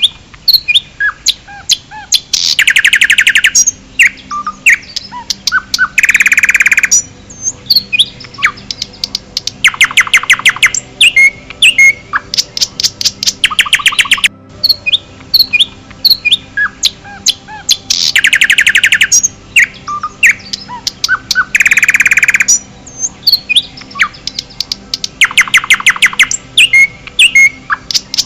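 Forest songbirds chirping and singing: quick high chirps, with a loud rapid trill about a second long every few seconds. The same stretch of birdsong repeats about halfway through, as a loop.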